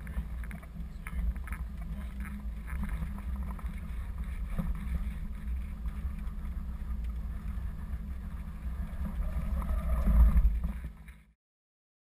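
Articulated truck heard from inside the cab during an emergency-braking run: a steady low rumble with scattered rattles and clicks, loudest about ten seconds in, then cutting off suddenly.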